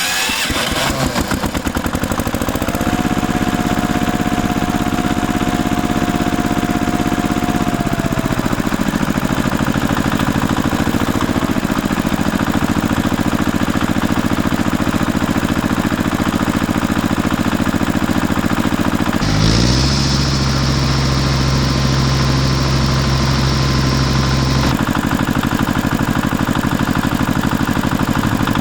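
An engine running with a fast, even pulse. Its pitch shifts a few seconds in, and about two-thirds of the way through it turns deeper and stronger for several seconds before settling back.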